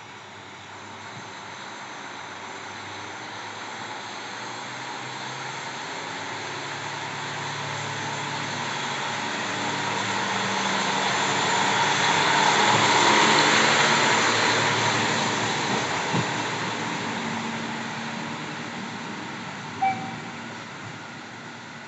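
KiHa 40 diesel railcar's engine running and wheels rumbling as it pulls out and passes, growing louder to a peak about halfway through, then fading away. A brief high tone sounds near the end.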